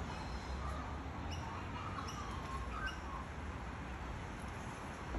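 A bird giving a few short, high chirps in the first few seconds, over a steady low outdoor rumble.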